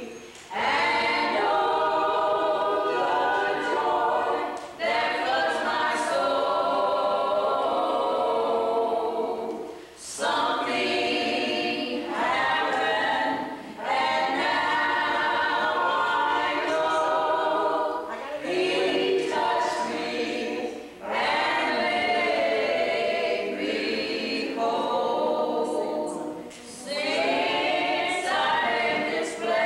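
A small group of one man and five women singing together a cappella, with no instruments, in sung phrases broken by short pauses for breath.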